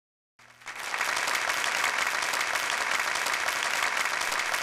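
Audience applauding. The clapping starts about half a second in and holds steady.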